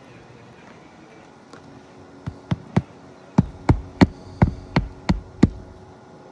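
Hammer driving a roofing nail through an asphalt shingle: three light setting taps, then seven hard blows about three a second.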